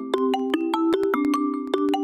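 Xiaomi Redmi Note 4 preloaded ringtone playing: a quick melody of bright, marimba-like struck notes, about five a second, over a held chord.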